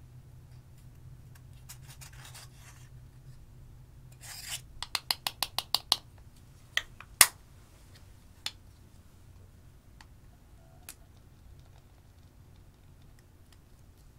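Metal tweezers scratching and prying a pressed eyeshadow pan out of its plastic compact. A scraping stretch is followed by a quick run of about eight sharp clicks, then a few separate sharp clicks and taps, the loudest about seven seconds in.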